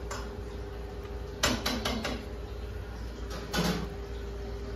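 Eating by hand from a stainless steel plate: a few short clinks and knocks about one and a half seconds in and again near three and a half seconds, over a steady background hum.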